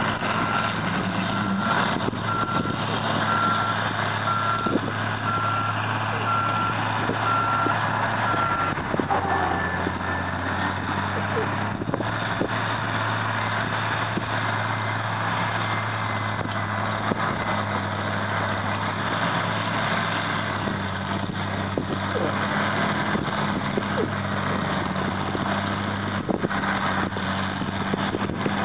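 Diesel engines of hydraulic excavators and a loader running steadily, with a backup alarm beeping about once a second that stops about a third of the way in. Scattered knocks and clatter of broken concrete rubble being handled.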